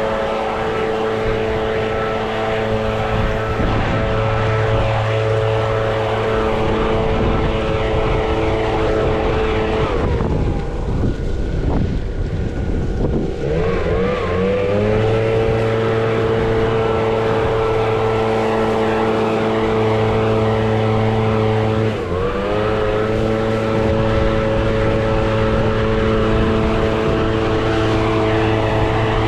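An engine running at a steady speed. About ten seconds in its pitch sags and wavers, then climbs back to speed around fifteen seconds in. It dips briefly again about 22 seconds in, like a load being taken and released.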